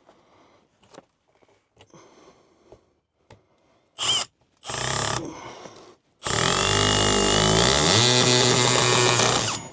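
Cordless drill running: two short bursts, then a longer run of about three seconds that winds up and holds steady before it stops.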